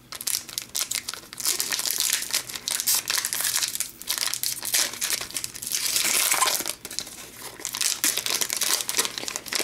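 Plastic wrapper of a 2014-15 Upper Deck Series 1 hockey card pack crinkling and tearing as it is handled and opened by hand. The crackling comes in runs, easing off briefly near the middle and again a little after two-thirds of the way through.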